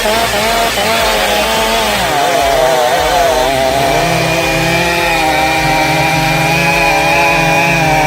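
Two-stroke chainsaw running at high revs, its pitch wavering up and down for the first few seconds, then holding a steady high note.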